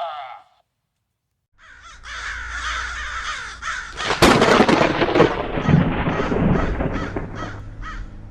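2005 Gemmy Cursed Coffin Halloween doorbell playing its recorded spooky sound effect: after a short silence, a loud rumbling build with a sharp crash like thunder about four seconds in, and crows cawing, with a run of short caws near the end.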